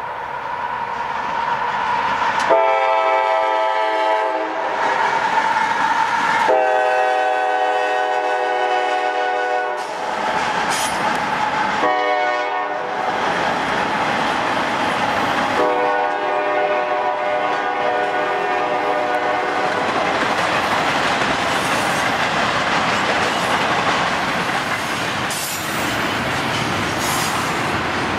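Air horn of a CSX GE AC44CW locomotive sounding the grade-crossing signal as it passes: two long blasts, one short and one long. After that comes the steady noise and wheel clatter of intermodal stack and trailer cars rolling past.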